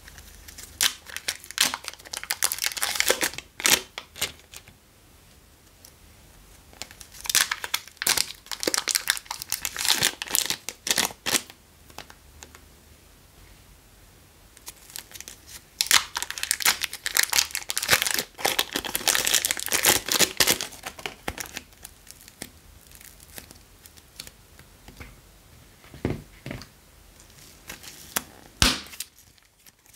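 Thin plastic wrappers around small packs of modelling clay being crinkled and torn open by hand, in three long spells of rustling with quieter pauses between, and a couple of short sharp clicks near the end.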